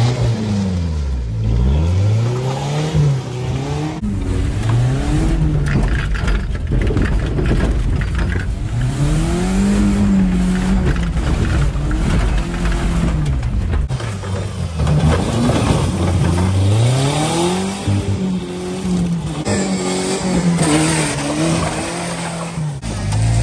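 Ford Ranger pickup's engine revving up and down over and over, its pitch repeatedly climbing and falling as the truck is driven hard through mud and leaves.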